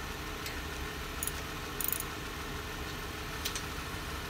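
Hand ratchet with a socket clicking in a few short bursts as lug nuts are run down on a car wheel, over a steady low hum.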